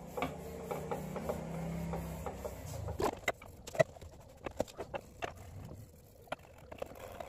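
Metal burner parts being scrubbed with a scouring pad and handled on a wooden table: rubbing and scraping, then a run of sharp clicks and knocks from about three seconds in as the wire stand taps against the table and the other pieces.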